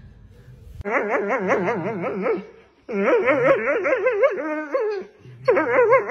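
A small hound-type dog gives three long, warbling howls, each with a fast wobble in pitch and a short break between them.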